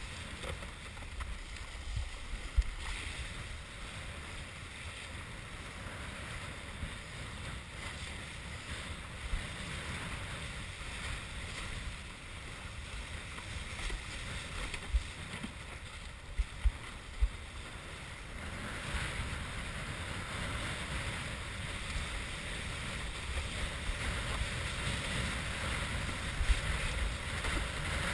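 Wind buffeting a head-mounted GoPro camera's microphone over the steady rush of water along a windsurf board under sail, with a few brief thumps; the hiss grows a little louder about two-thirds of the way through.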